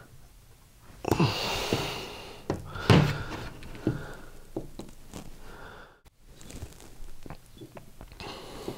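Plastic housing of a hot air rework wand being pried at and handled, its glued halves resisting: scattered clicks, creaks and knocks of the plastic, loudest in the first few seconds.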